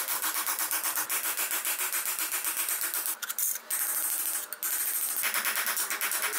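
Rapid, even strokes of metal working on a steel shovel blade, about five a second, with a rasping, sanding-like sound. The strokes break off briefly twice in the middle.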